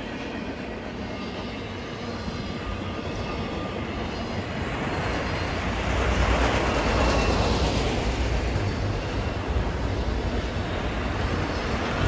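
Freight train rolling past: a continuous rumble and hiss of wheels and cars on the rails. It swells about four seconds in and is loudest a little past the middle, with a steady low hum underneath from then on.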